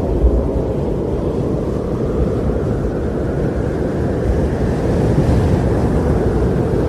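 Wind buffeting the microphone: a steady low rushing noise with irregular low thumps.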